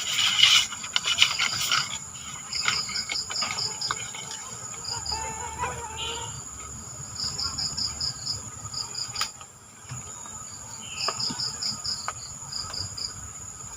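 Swamp insects calling: a steady high-pitched drone with repeated short trains of rapid chirps over it. A burst of crackling noise in the first two seconds is the loudest part.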